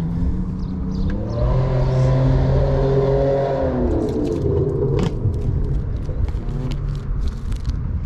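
A motor vehicle passing close by: its engine note swells from about a second in and fades after about four seconds, over a steady low traffic rumble. A sharp knock comes about five seconds in, followed by a few light clicks.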